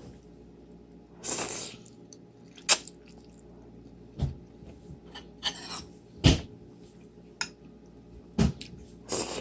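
Household handling noises: scattered knocks and clicks at irregular intervals, with two short hissing rustles.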